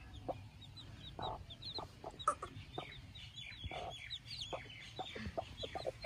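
A hen clucking softly in short, scattered notes while her young chicks peep continuously, each peep a short falling high note.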